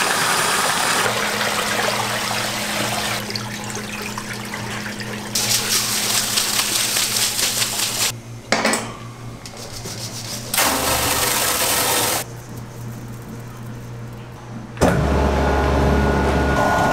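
A series of cut kitchen-production sounds: water running and splashing as rice is washed in a large basin, then rice grains pouring, with a steady low machine hum underneath. From about fifteen seconds a louder machine runs with a deep steady hum.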